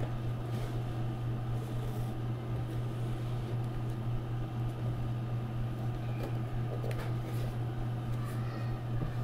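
Steady low hum, with a few faint clicks and rustles.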